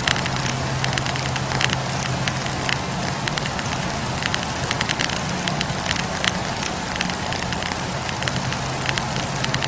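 Wood campfire crackling: many irregular sharp pops and snaps from the burning logs over a steady hiss, with a low steady hum underneath.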